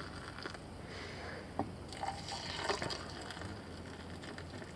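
Faint liquid sounds with a few small clicks and knocks.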